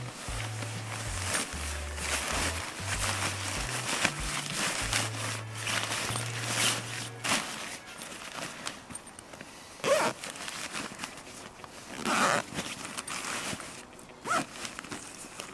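Nylon tent fabric rustling and scraping as it is pushed into its carry bag, then the bag's zipper pulled shut in several short rasping strokes about two seconds apart. Background music with a low bass line runs under the first half and stops about halfway through.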